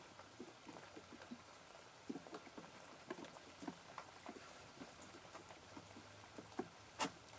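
Faint, irregular patter of light rain dripping, with one sharp click about seven seconds in.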